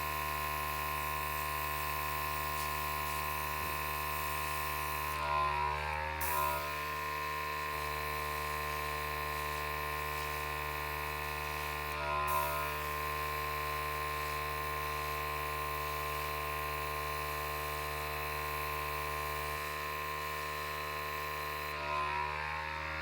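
Steady electric hum with a strong whine and low mains-like undertone, briefly wavering in pitch about five, twelve and twenty-two seconds in.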